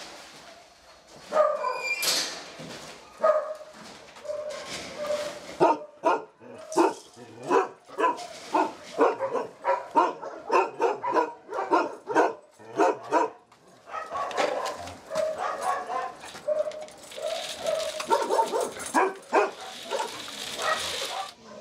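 Many shelter dogs barking and yelping, with short barks coming in quick runs and overlapping one another, and a high yelp about two seconds in.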